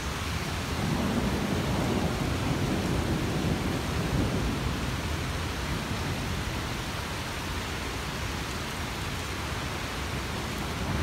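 Heavy rain pouring down in a thunderstorm, a steady hiss of downpour that holds even throughout.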